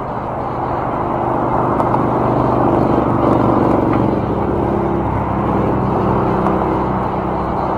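Road traffic: cars driving through the intersection, with engine hum and tyre noise swelling to its loudest about three seconds in, then easing off a little.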